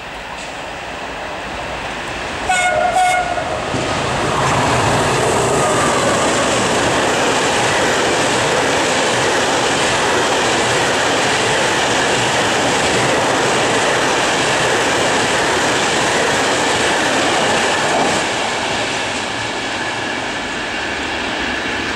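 Freight train hauled by an FS E.652 'Tigre' electric locomotive passing at speed. It sounds two short horn blasts about two and a half seconds in, then the loud rush of the wagons going by follows and eases a little near the end.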